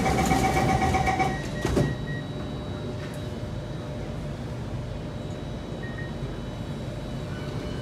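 Door-closing warning beeps on an Alstom C751A metro train, stopping about a second in; the sliding doors then shut with a thump just under two seconds in, leaving a steady hum inside the car.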